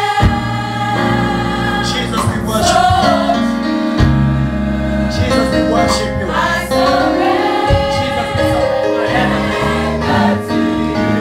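Gospel choir singing a worship song together.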